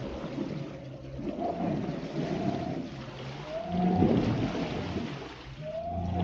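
Twin VESC-controlled brushless electric motors of a small homemade plywood boat whining under way, the pitch rising three times as the throttle comes up, over a rushing of water along the hull.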